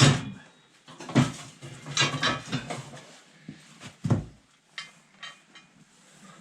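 Metal tools and parts clanking and clattering as they are handled: a string of sharp knocks, the loudest at the start, a cluster about two seconds in and another about four seconds in.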